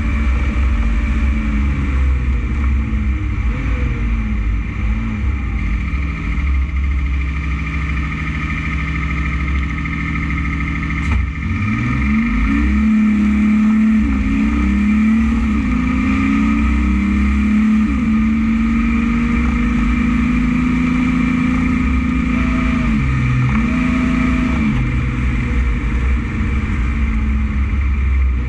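Loaded truck running along the road, heard from inside the cab: a steady engine note over low road rumble. About 11 seconds in there is a sharp click, then the engine pitch dips and climbs several times before settling back into a steady run.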